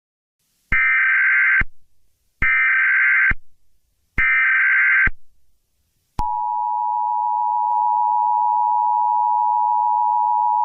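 Emergency Alert System tones: three short bursts of screeching SAME header data, about a second each, then the steady two-tone EAS attention signal starting about six seconds in.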